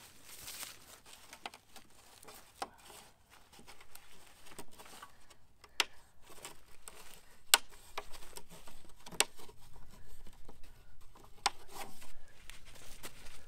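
Plastic insect netting being handled and worked into the lock channel: rustling and crinkling with scattered sharp clicks and snaps, the loudest about halfway through and the handling getting busier towards the end.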